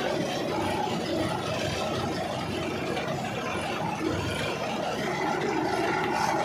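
Tractor engine running steadily under load while a front-mounted paddy reaper cuts rice stalks, the engine noise and the reaper's running mechanism blending into one dense, even din.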